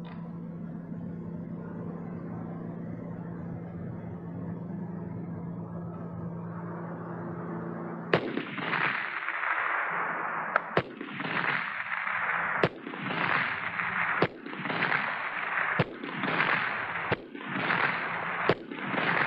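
M14 rifle in 7.62x51mm NATO fired semi-automatic at long range: about seven single shots, roughly one every one and a half to two seconds, each report trailing a long echo. Before the first shot, about eight seconds in, there is only a steady low hum.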